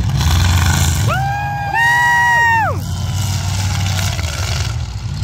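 Two air horns blowing over each other for about two seconds, each pitch sliding up as it starts and sagging down as it dies, over the steady low rumble of race car engines running on the dirt track.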